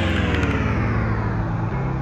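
Background rock music: a held, distorted chord ringing on, its bright top slowly fading away.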